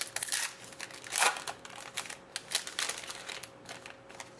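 Trading cards and pack packaging being handled: a run of small quick clicks and light rustles, with a louder rustle about a second in. A faint steady hum sits underneath.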